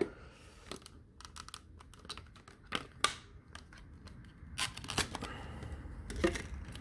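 Plastic packaging being torn open and crinkled by hand: scattered soft crackles with a few sharper ticks.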